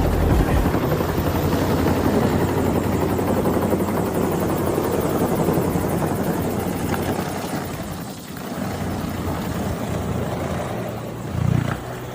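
Bell 222 helicopter flying, its two-bladed main rotor beating with a fast, steady chop. The sound eases a little about eight seconds in, then carries on.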